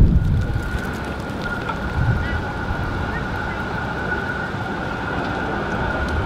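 Melbourne tram rolling in along street track, giving a steady high-pitched whine or squeal from the wheels and rails over a background of traffic hiss. Gusts of wind rumble on the microphone at the start.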